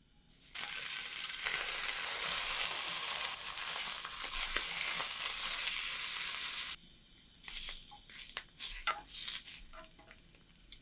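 Sliced ham sizzling in a nonstick frying pan over medium heat, a steady dense hiss. The sizzle cuts off abruptly about seven seconds in, leaving only a few light clicks and taps.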